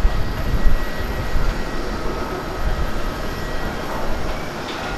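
Boeing 787-8 airliner landing: a steady jet engine rumble with a faint thin whine, loudest in the first second and easing slightly as the main wheels touch down near the end.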